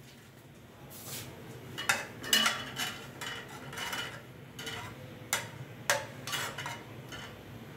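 Metal ladle stirring thick dal in a metal cooking pot, knocking and scraping against the pot's side and bottom in a dozen or so irregular clinks.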